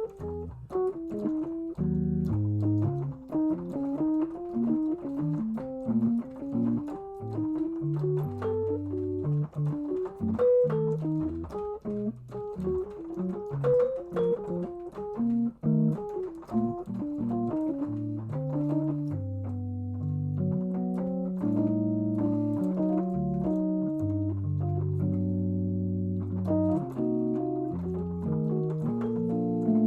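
Jazz keyboard playing quick runs up and down the whole-half diminished scale over bass notes. From about halfway through it moves to held chords, using the scale as the connector between the G major, B flat, D flat and E major tonalities.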